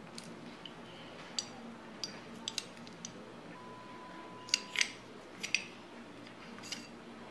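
Light metallic clicks and clinks from an FN 49 rifle's bolt and bolt carrier being handled and slid apart by hand. The clicks come one or two at a time, with the loudest few about halfway through.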